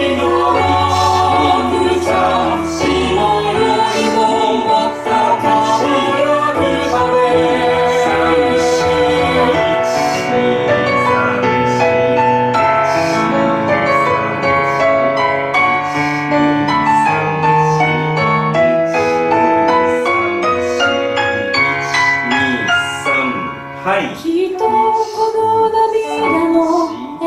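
Three-part mixed choir singing a pop song arrangement in Japanese with piano accompaniment.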